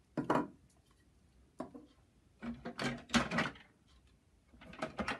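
Plastic model-kit parts being set down and moved about on a wooden tabletop: short knocks and scrapes in four clusters, the longest about halfway through.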